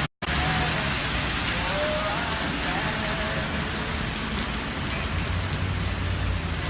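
Steady rain falling and splashing on hard surfaces: a continuous, even hiss, cut off briefly by a moment of silence just after the start.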